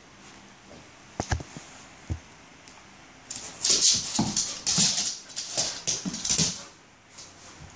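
Dog's claws skittering and scrabbling on a hardwood floor as it darts and pounces after a laser dot: a dense run of quick scratchy taps starting about three seconds in, mixed with a few short whimpers.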